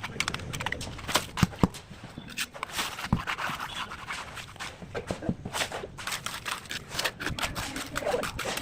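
Irregular scraping and sharp knocks of masons' hand tools working wet concrete or mortar, as in laying a damp-proof course.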